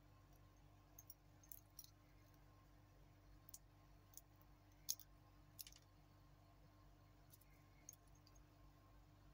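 Titanium watch bracelet links and clasp clicking faintly as they are handled: a handful of irregular light metal clicks, one sharper click about halfway through.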